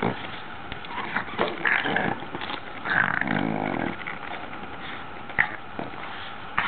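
Young Boston terrier growling in play in short bursts while biting at a bristle hairbrush, the longest growl about three seconds in. A sharp click comes a little after five seconds.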